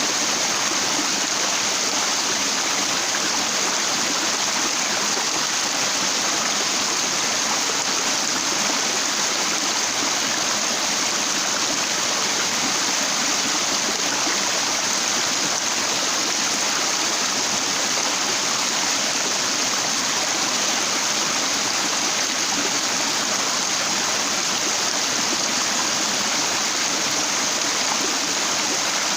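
Water flowing and splashing over rocks in a stream, a steady, unbroken rush.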